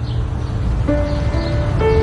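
Background instrumental music: held notes, with new notes coming in about a second in and again near the end, over a steady low rumble.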